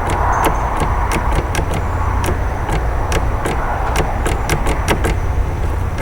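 Sharp, irregular metallic clicks, several a second, of a key blank being twisted and rocked in an American 1100 padlock to raise impression marks on it, over a steady low hum.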